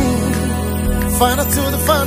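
Background music from a Swahili gospel song, in a passage without sung words: sustained low notes, with a bending melody line coming in after about a second.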